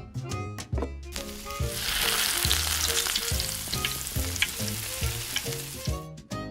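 Miniature donuts frying in hot oil, a steady sizzle that starts about a second in and stops shortly before the end, over background music.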